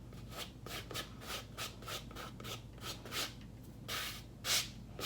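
A stick scraping against the inside of a paint cup in quick repeated strokes, about three a second, with a louder scrape near the end: layered acrylic pouring paint being stirred.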